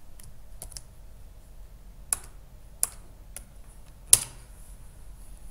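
Computer keyboard keys struck one at a time: a few light clicks early, sharper taps about two and three seconds in, and the loudest keystroke about four seconds in, as the pasted command is entered in the terminal.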